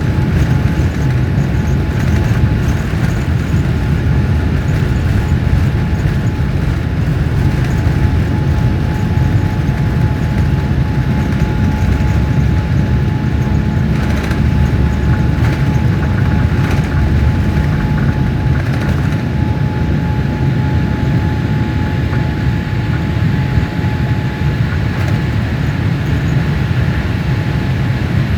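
Airliner heard from inside the cabin during taxi or the start of the takeoff: a loud, steady low rumble with a thin steady whine that stops near the end, and a few light rattles.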